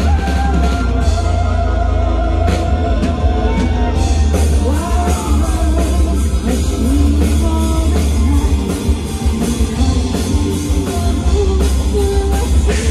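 Live power metal band playing: a woman singing lead with long held notes over distorted electric guitars, bass and a drum kit with steady cymbal hits.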